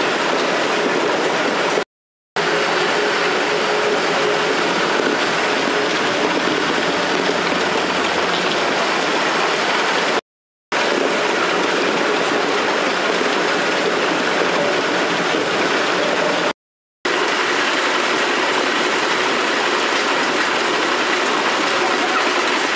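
Cucumber grading and packing line running: a steady mechanical rattle and clatter of conveyors and sorting machinery. It cuts out to silence for about half a second three times.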